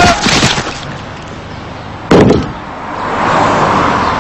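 A single loud, sudden bang or crash about two seconds in, with a short ringing tail, followed by a noisy hiss that swells up and holds.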